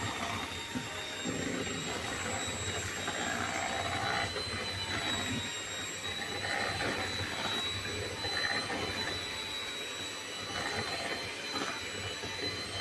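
Hand-held electric mixer running steadily, its beaters creaming butter and sugar in a stainless steel bowl, with a steady high motor whine.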